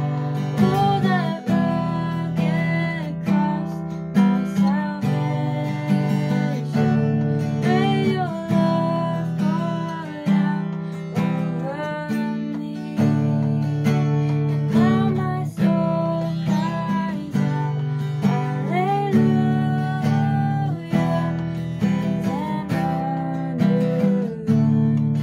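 Acoustic guitar strummed in a steady rhythm, the chords changing every couple of seconds, with a melody of sliding notes above them.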